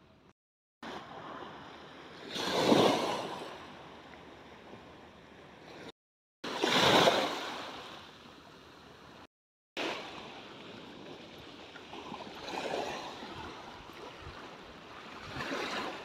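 Small waves washing onto a pebble beach, the surf swelling and falling back about four times. The sound cuts out entirely three times for a fraction of a second.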